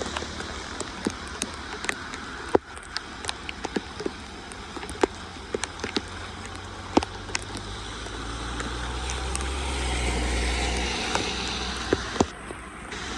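Steady water noise, typical of street floodwater draining, with irregular sharp ticks and splashes scattered throughout. A low rumble swells and fades about eight to eleven seconds in.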